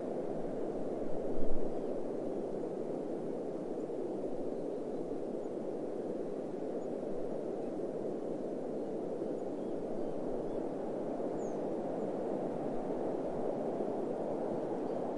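Steady wind blowing, an even low-pitched noise, with one brief low thump about a second and a half in.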